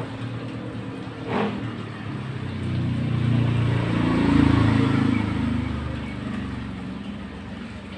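A motor vehicle passing by, its engine sound swelling to a peak mid-way and then fading away.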